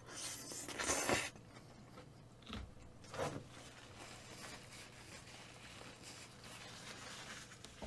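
Mouth-noise eating: a loud slurp of wide kalguksu noodles in black bean sauce lasting about a second, a short second slurp or bite about three seconds in, then quieter chewing.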